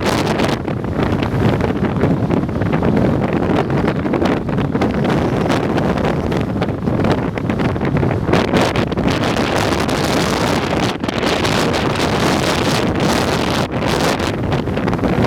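Storm-force wind buffeting the camera's microphone: a loud, steady rumbling roar of gusts with no let-up.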